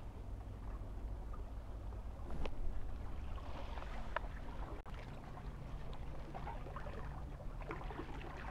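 Seaside ambience: small waves lapping and splashing against shore rocks over a low, steady rumble.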